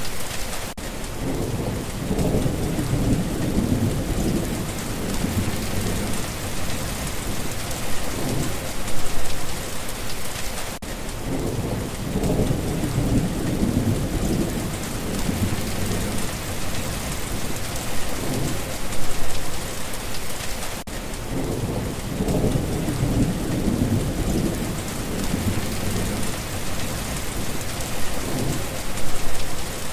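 Steady rain pattering, with low rolls of thunder rumbling up and fading away about every ten seconds.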